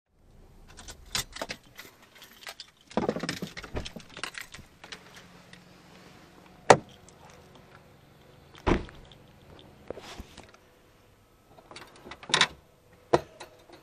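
Hatchback car door and rear hatch being handled: a run of clicks, rattles and sharp knocks, with a deep thud of a door shutting about two-thirds of the way through and a latch clunk near the end as the hatch is opened.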